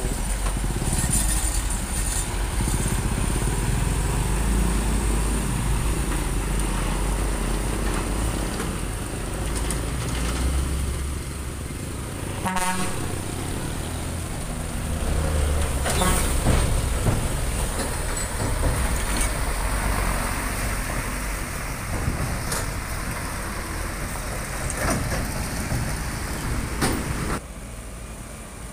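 Truck engines running as heavy trucks pass one after another, with a short horn toot about twelve seconds in. The engine noise drops off abruptly near the end.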